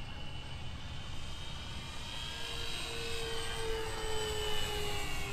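Twin electric motors and propellers of a Dynam P-61 Black Widow RC model plane whining in flight, growing louder about halfway in as it passes, the pitch sliding slightly down, over a low rumble.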